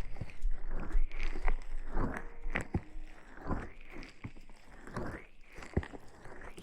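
Close-miked ASMR rustling: irregular crinkly swishes and scratches with a few sharp clicks, louder in the first couple of seconds and softer after.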